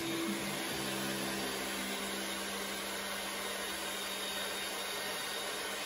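Handheld hair dryer running steadily, blowing air through hair, with a low steady motor hum under the rush of air.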